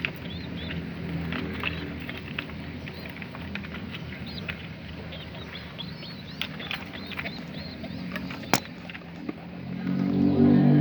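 A steady low motor hum with scattered short high chirps over it. A single sharp click comes about eight and a half seconds in, then a low engine rumble swells up near the end and is the loudest part.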